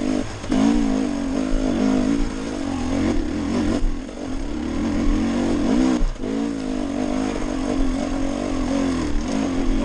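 Dirt bike engine running under load, its pitch rising and falling with the throttle as it climbs over rocks. It briefly drops off about four and six seconds in.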